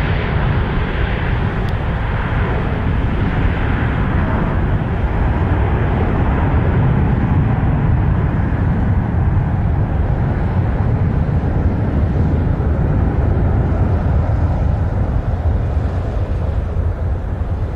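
Boeing 777-9's twin GE9X turbofans at takeoff thrust as the airliner climbs away: a steady deep jet rumble with a hiss on top. The hiss thins and the sound eases slightly toward the end.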